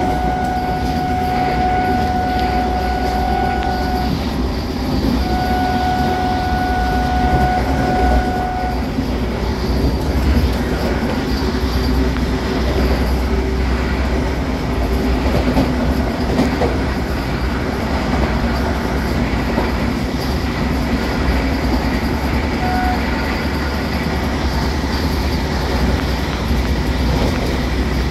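Vande Bharat Express electric train heard from inside a passenger coach, running fast and accelerating from about 77 to 111 km/h, with a steady rumble and the clatter of wheels on rails. A steady high tone from the train's horn sounds twice in the first nine seconds, and again briefly near the end.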